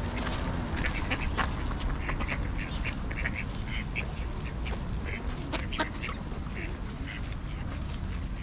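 Ducks quacking in short, irregular calls over a low steady rumble.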